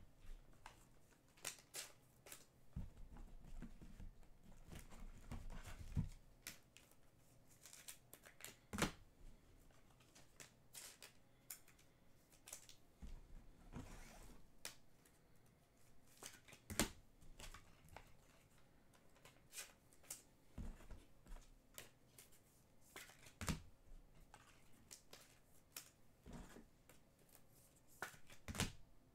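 Faint, irregular clicks and light rustling from trading cards and pack wrappers being handled.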